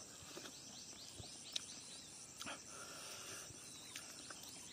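Faint outdoor ambience of insects chirping steadily, with a few soft clicks.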